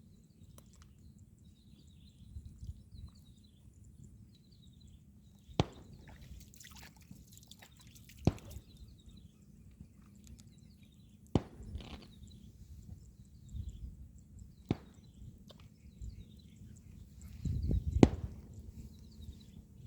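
Outdoor ambience: a low rumble with faint high chirping, broken by five sharp knocks or clicks spaced a few seconds apart, the loudest near the end.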